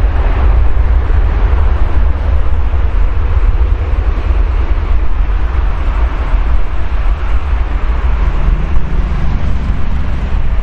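Jet engines of an Airbus A330 twin-jet airliner running on the runway: a loud, steady rumble with a jet roar.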